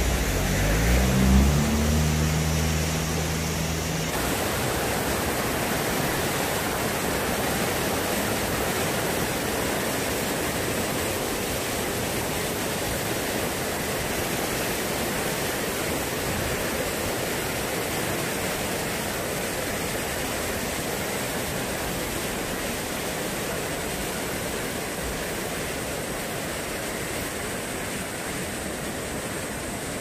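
Mountain stream rushing over boulders and rock slabs: a steady rush of water. Low tones that step up in pitch sound for the first few seconds, then stop about four seconds in.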